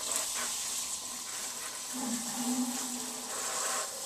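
Kitchen tap running steadily as a bottle is rinsed under it.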